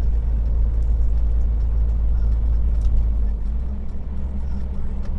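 Heavy truck's diesel engine droning steadily inside the cab while pulling up a grade in eleventh gear under cruise control. About three and a half seconds in, the low drone shifts and eases slightly.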